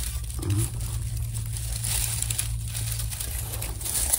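Dry grass and brush rustling and crinkling close by, with irregular crackles, as the vegetation is handled.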